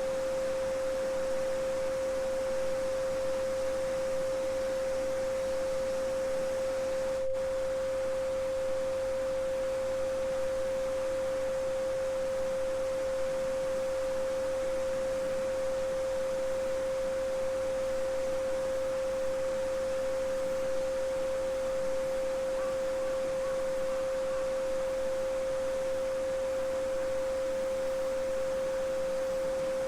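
A steady 528 Hz sine tone, held without a break, over the even rushing hiss of a babbling brook.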